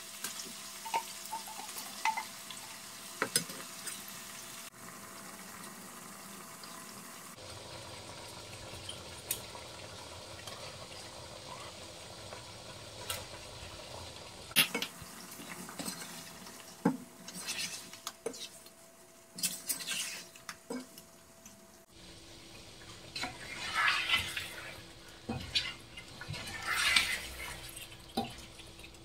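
A spatula stirring beef pieces in a thick masala sauce in a non-stick pan, knocking and scraping against the pan's coated surface in scattered clicks and longer scrapes, over a faint sizzle of the simmering pan.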